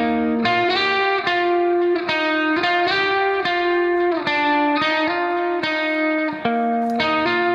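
Background music led by a guitar playing plucked notes in a steady rhythm.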